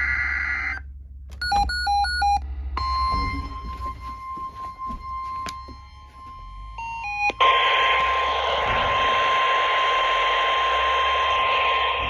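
A few short electronic beeps, then the steady NOAA Weather Radio alert tone (about 1050 Hz). It is faint at first, then about seven seconds in it comes through loud over heavy static from a Midland GXT two-way radio on a weather channel, the alarm for a severe thunderstorm watch.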